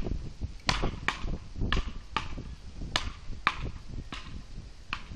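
Beach paddles striking a small ball in a rally: a run of sharp, hollow clacks, about one or two a second, often two close together.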